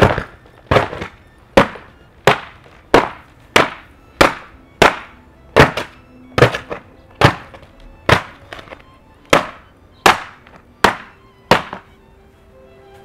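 Wooden picture frame being smashed, about sixteen hard whacks, one roughly every three-quarters of a second. The whacks stop shortly before the end as the frame breaks apart.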